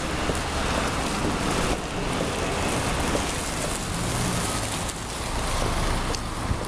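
Steady rushing noise of wind on a handheld camera's microphone during a walk along a street, with a car's engine close by in the middle.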